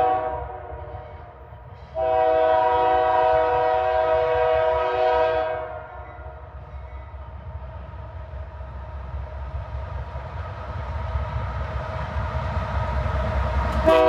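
Diesel locomotive air horn sounding a multi-note chord: the tail of one blast, then a long blast lasting nearly four seconds, then a brief blast at the end as the train nears. Between the blasts, the low rumble of the approaching locomotive and train grows steadily louder.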